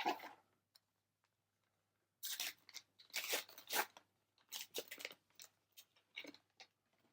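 Foil trading-card booster pack being torn open and crinkled: a run of short tearing and crinkling noises starting about two seconds in and lasting a few seconds.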